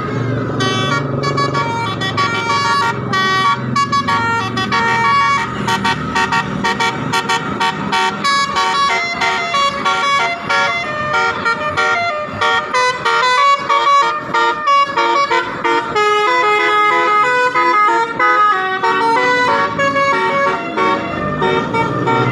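Bus basuri telolet horn playing a fast melody of many quick, changing horn notes, loud throughout, with the bus engine running underneath.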